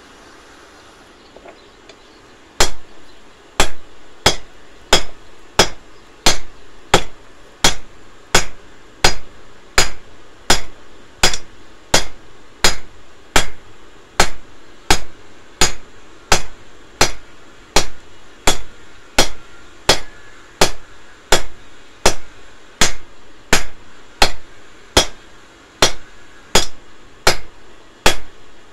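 Hammer blows on red-hot steel held on an anvil during hand forging, a steady rhythm of about three strikes every two seconds, each with a short metallic ring. The hammering starts a couple of seconds in.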